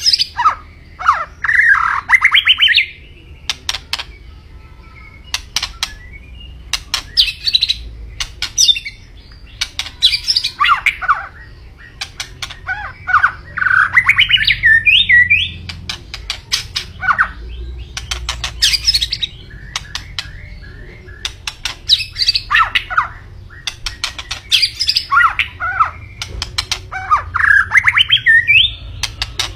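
White-rumped shama singing: repeated loud phrases of quick sharp clicking notes and whistled notes that slide up and down, with short pauses between phrases.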